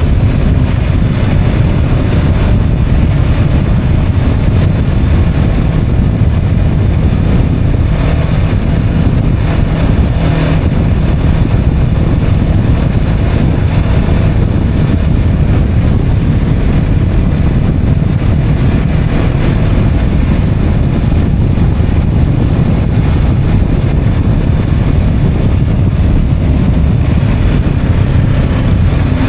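Motorcycle running at a steady road speed, its engine blended with heavy wind noise on the microphone.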